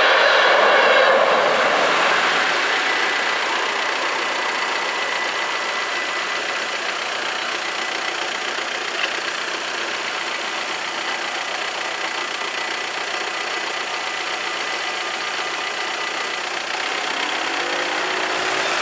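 The last coaches of a passenger train roll through the level crossing and fade out over the first couple of seconds. Then comes a steady hiss of traffic on a wet road with car engines idling. Near the end a car engine revs up as it pulls away.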